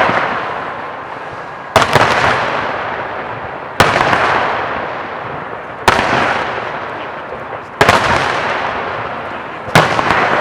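Aerial fireworks shells bursting: a sharp bang about every two seconds, five in all, each trailing off in a long fading tail of echo and crackle.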